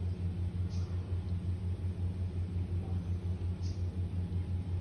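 Engine idling nearby: a steady low rumble with an even, fast pulse.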